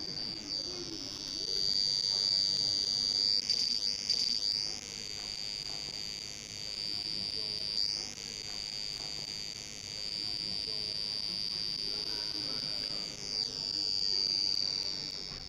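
Home-built light-to-sound device, a small oscillator circuit whose pitch follows the light falling on it, giving off a steady, high electronic whine. A few times the pitch swoops sharply and comes back.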